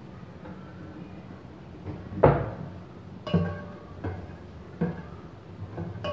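Background music of sparse plucked-string notes, struck at an irregular pace and each ringing briefly, over a low steady hum.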